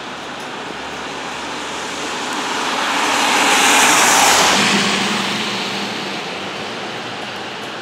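An SUV driving past on a wet road: the hiss of its tyres on the wet surface swells to a peak about four seconds in and fades away, over a steady background hiss.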